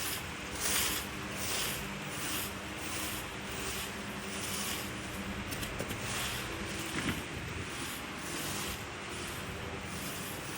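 Dry leaves being raked: a steady run of short scraping strokes, about two a second.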